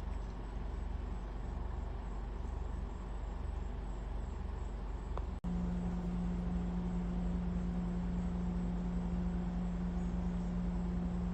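A steady low motor hum. About five seconds in the sound drops out for an instant, and afterwards a steady humming tone comes through louder.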